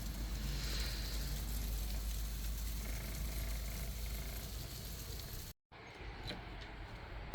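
Steady hiss of rain falling on deep snow, with wind rumbling on the microphone. It cuts off abruptly about five and a half seconds in, giving way to a quieter hush.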